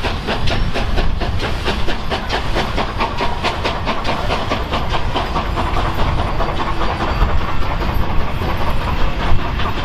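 A train moving through the station: a fast, even run of beats, several a second, over a steady hiss and low rumble. The beats fade out about halfway through.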